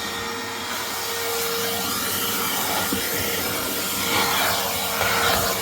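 Craftsman V20 20-volt cordless 5-gallon wet/dry vacuum running steadily, a steady motor whine under the rush of air through the nozzle as it sucks debris off a car floor mat.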